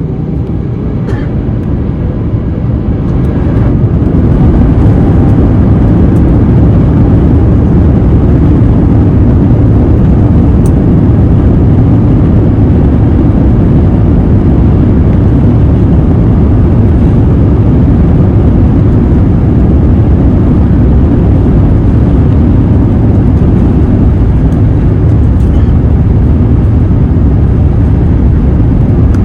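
Airbus A350-900's Rolls-Royce Trent XWB jet engines and rushing airframe noise heard from inside the economy cabin during takeoff. The noise grows over the first few seconds as the engines spool up to takeoff thrust, then holds as a steady roar.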